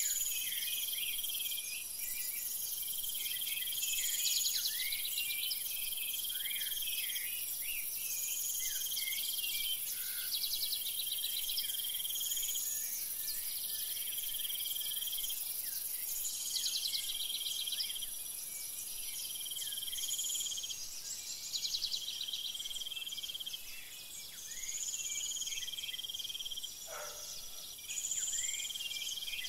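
Insect chorus: high pulsed trills repeating about every two seconds, with scattered short chirps over a steady high hiss. A single lower, falling call comes near the end.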